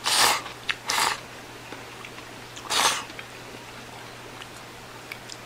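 Instant ramen noodles slurped from a bowl: three short slurps, the first two about a second apart and the third near the middle.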